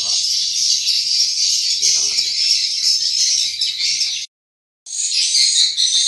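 Dense, continuous high twittering of swiftlet calls filling the swiftlet house, with faint handling knocks underneath. The sound cuts out completely about four seconds in and resumes about half a second later.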